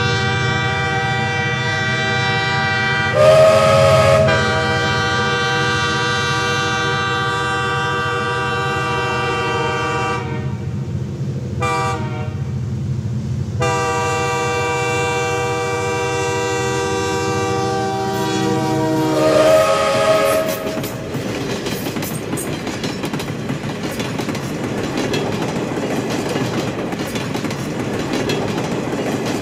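Train sound: a long, loud horn chord held over a low rumble, breaking off about ten seconds in and sounding again a few seconds later, then stopping at around twenty seconds to leave the train's rumble and clatter.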